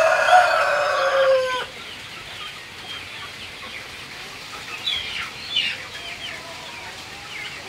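A rooster crows once at the start, one long call of about a second and a half that drops in pitch at its end. After that, a flock of feeding chickens keeps up a run of short clucks and chirps.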